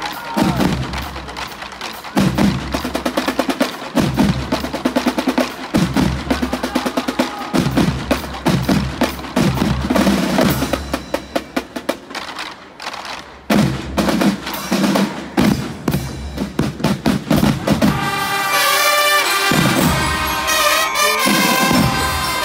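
Marching band drum line playing a cadence on snare, tenor and bass drums, with rolls and loud repeated strokes. About 18 seconds in, trumpets join with a held melody over the drums.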